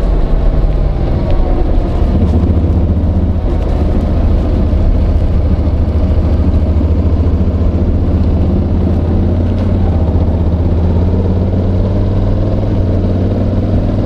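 Honda NC750X's parallel-twin engine running at a steady low pitch, the note shifting slightly about one to two seconds in. Picked up by a microphone in a jacket pocket, so the sound is muffled and the mic scrapes on the slippery fabric.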